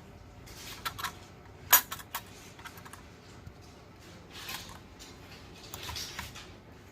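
Light clicks and taps of small hard parts being handled, with some rustling; the sharpest click comes just before two seconds in.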